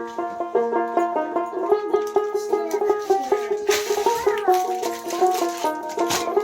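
Background music: a quick, bright plucked-string tune of rapid notes over a steady held note.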